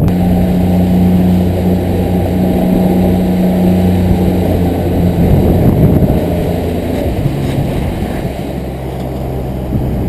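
Outboard motor running steadily as a small aluminium fishing boat travels across choppy water, with wind and water rushing past; the engine note drops a little about seven seconds in.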